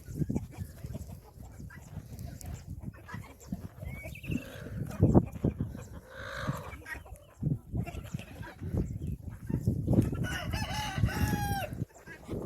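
Chickens clucking, with a rooster crowing near the end, over scattered low thumps.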